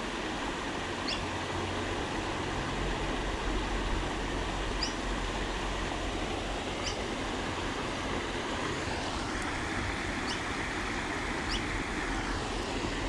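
Steady rush of creek water spilling over the rocky weir below a concrete culvert, with a few short, high chirps over it.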